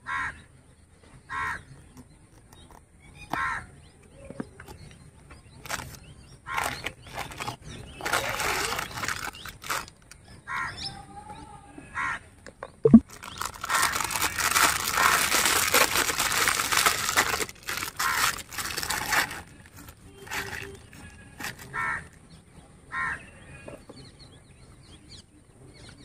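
Loud rustling and tearing of gift-wrap paper, cardboard and plastic packaging as a toy tractor is unwrapped by hand, in two long stretches with a sharp click between them. Crows caw every second or two throughout.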